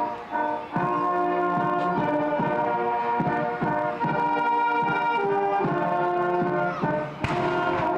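Brass band playing slow, held chords that change every half second or so, with a short noisy crash about seven seconds in.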